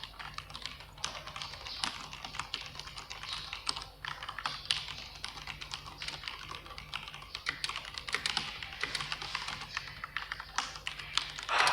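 Continuous fast typing on an iKBC KD87 tenkeyless mechanical keyboard with tactile, non-clicky Cherry MX Brown switches: a dense, uneven patter of keystrokes, with one louder strike at the very end.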